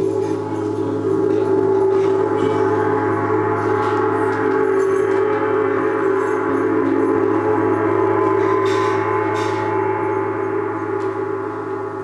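Large hanging gong played with a soft round-headed mallet in gentle repeated strokes, building a continuous wash of many overlapping ringing tones. The sound swells over the first two seconds, holds, and eases off a little near the end.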